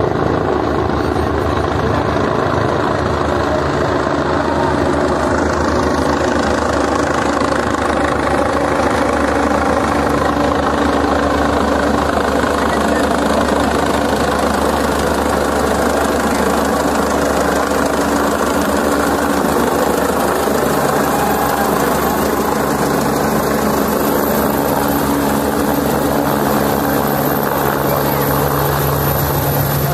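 Helicopter approaching and coming down to land, a steady engine-and-rotor drone whose low hum grows stronger over the last ten seconds or so as it nears the ground, with a crowd talking under it.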